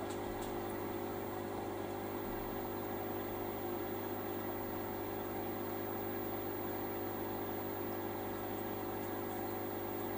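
Aquarium pump running with a steady low hum.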